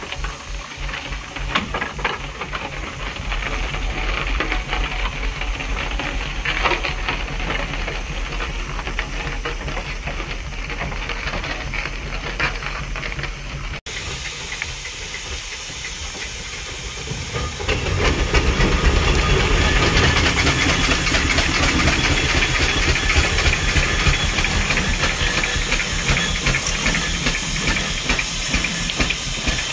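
Steam engine working, a steady hiss of steam over a low rhythmic running. After a break about 14 s in, the hiss grows louder from about 18 s on.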